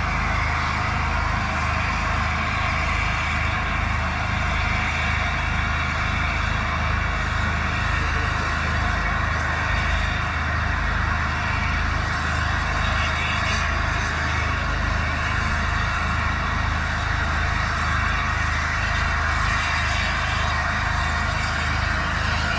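LNER A4 Pacific steam locomotive Sir Nigel Gresley standing with a steady hiss of escaping steam over a low, even rumble.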